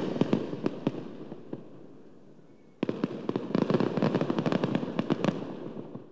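Fireworks crackling: many sharp pops that die away, then a fresh burst of dense crackling starts suddenly about three seconds in and fades out.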